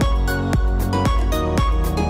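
Electronic background music with a steady beat: a deep kick drum about twice a second over a sustained bass, with sharp ticks between the kicks.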